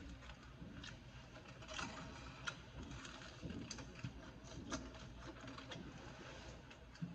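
Close-up eating sounds: a chopped cheese hero handled over its crinkly aluminium foil wrapper, then bitten into and chewed, heard as faint scattered clicks and crackles.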